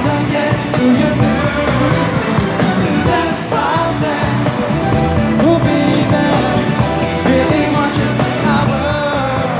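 Pop song with male voices singing over full band accompaniment, played at a steady, loud level.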